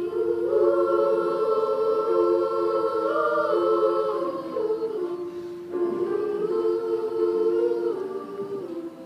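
Girls' children's choir singing in parts: two long, held phrases, with one steady note sustained underneath them.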